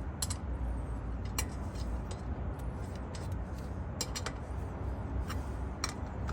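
Lug wrench tightening lug nuts onto a spare wheel, with scattered short metallic clicks and clinks as the nuts bottom out against the wheel. A normal noise, not a sign of anything wrong.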